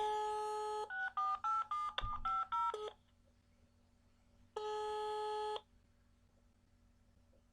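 Phone tones heard through the handset's speaker: a one-second steady tone, then a quick run of about eight touch-tone dialing beeps, and after a pause another one-second steady tone, the ringback tone of the call ringing at the other end.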